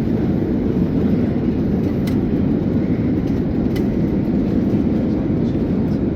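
Steady drone of an Airbus A321neo's engines and airflow heard inside the passenger cabin on the approach to landing, even in level with no change.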